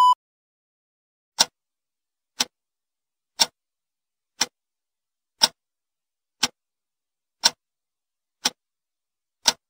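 Clock ticking: nine sharp ticks, one a second, beginning about a second and a half in. At the very start, a steady test tone cuts off.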